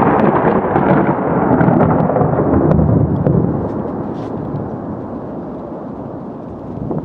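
Thunder rolling: a loud, deep rumble that stays strong for about three and a half seconds, then slowly fades.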